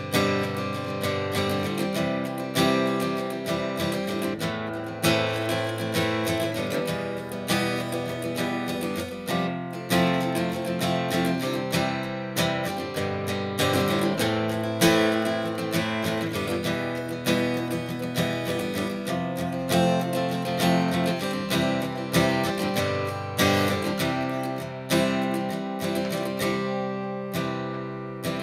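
Background music: strummed acoustic guitar with a steady, even rhythm.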